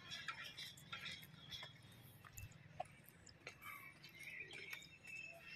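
Near silence: faint background hum with a few soft scattered ticks.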